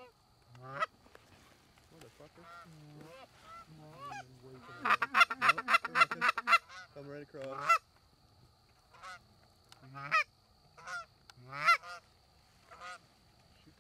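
Canada goose honks and clucks, a few scattered single calls with a fast, loud run of them about five seconds in.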